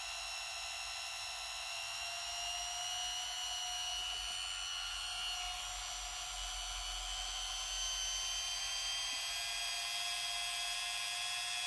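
Tacklife corded variable-speed rotary tool running free at its lowest speed setting, a steady high-pitched motor whine whose pitch edges slightly upward.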